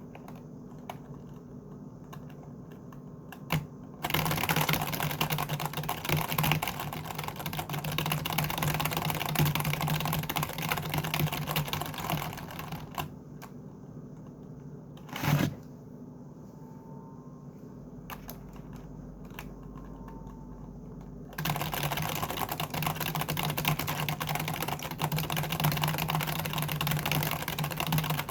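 Typing on a computer keyboard: two long runs of fast keystrokes, with quieter stretches of a few scattered key clicks between them and a single louder knock about halfway through.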